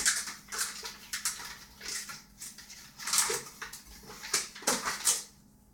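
A series of short rustles and scrapes as flour is scooped out of a bag with a measuring cup, with light knocks of the cup.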